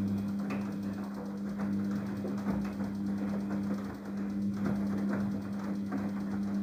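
Daewoo DWD-FT1013 washing machine running in its rinse cycle: a steady motor or pump hum under an uneven clattering, rushing noise.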